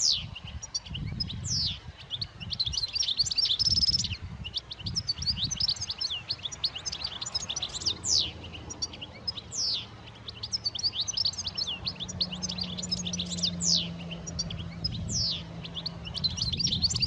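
European goldfinch twittering: a fast, unbroken run of high chirps and short trills, with occasional downward-sliding notes.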